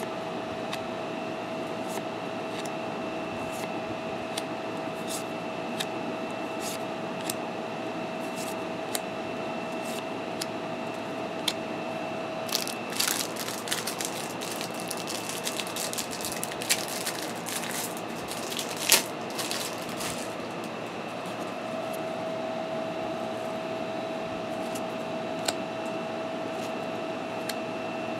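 Trading cards being handled: light card-stock clicks and snaps as cards are flipped one by one, with a busier stretch of rustling and shuffling through the middle and one sharper snap. A steady hum with a faint whine underneath.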